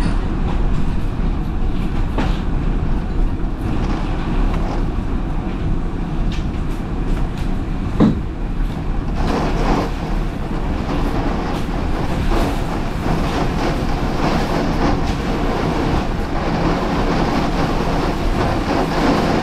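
Tornado wind heard from inside a house during a direct hit: a loud, continuous rush of wind heaviest in the low end, with debris knocking against the house. One sharp bang stands out about eight seconds in.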